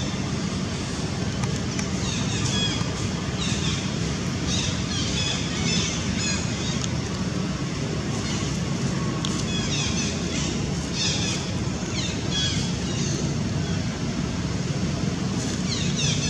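Outdoor ambience: a steady low rumble with repeated runs of quick, high chirps that fall in pitch, coming in bursts every few seconds.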